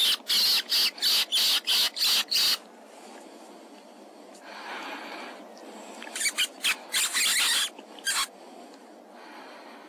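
Predator call worked in runs of short, sharp squeaks to draw a fox in: about eight in quick succession, a softer one a few seconds later, then another run of about six.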